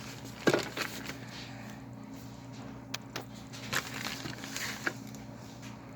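A furnace draft inducer motor with its newly fitted fan hums quietly and steadily. Several sharp clicks and knocks of handling sound over it, the loudest about half a second in.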